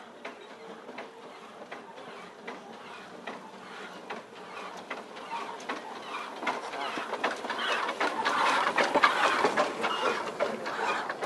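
Small 2 ft gauge colliery steam locomotive running slowly past, with an irregular clatter of clanks and knocks from its running gear and wheels. It grows louder as it draws level, loudest near the end.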